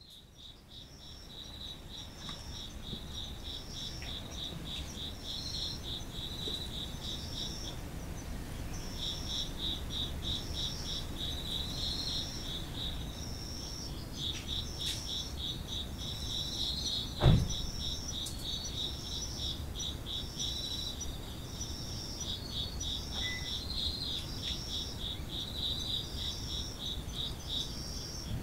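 Chorus of Japanese autumn insects, crickets among them. One sings a fast pulsing trill in phrases of several seconds with short breaks, while another repeats short, higher chirps about once a second, over a low steady rumble. The chorus fades in over the first couple of seconds, and a single dull thump comes a little past halfway.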